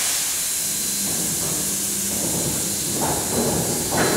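Steady, fairly loud hiss with a faint low hum, joined by irregular bursts of sound about three seconds in.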